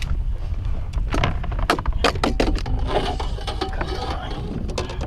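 Scattered knocks and clatter as a freshly landed fish and the landing net are handled on the aluminium deck of a fishing boat, over a steady low rumble.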